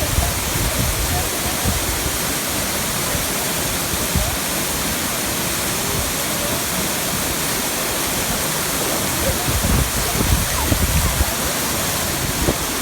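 Waterfall water rushing and splashing in a steady loud wash of noise, with irregular low rumbles now and then, strongest about ten seconds in.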